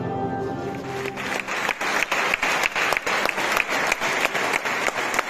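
Instrumental music dies away in the first second, then the wedding guests break into applause, with many sharp individual claps standing out.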